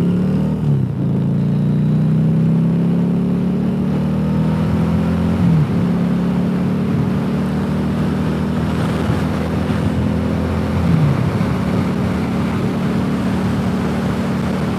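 Harley-Davidson V-twin motorcycle engine running at road speed, heard from the rider's seat with wind and road rush. Its pitch climbs near the start, then dips briefly three times, about five seconds apart, between stretches of steady running.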